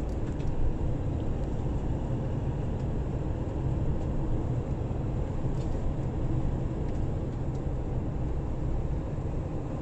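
A car driving at steady road speed: an even, low noise of engine and tyres on asphalt that holds level throughout.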